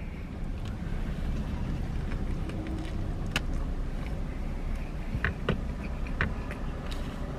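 Quiet chewing of a mouthful of burrito, with a few faint short clicks a few seconds in, over a steady low hum inside a parked car.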